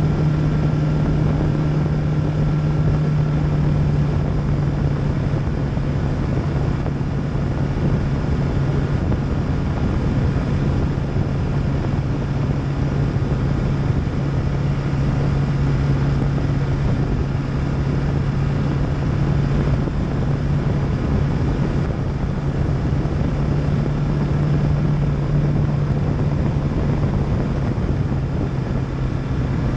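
Kawasaki KLR650 single-cylinder four-stroke engine droning steadily at cruising speed, heard from the bike itself with wind rushing over the microphone. Its pitch drops slightly near the end as the bike eases off.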